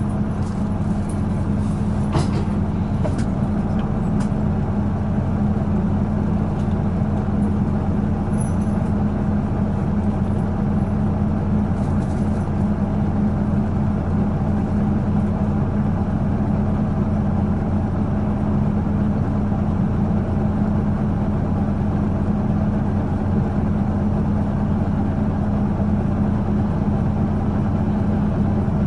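The diesel engine of a 2005 Isuzu Erga PJ-LV234N1 city bus idling at a steady, unchanging pitch, heard from inside the passenger cabin. A few faint ticks sound in the first dozen seconds.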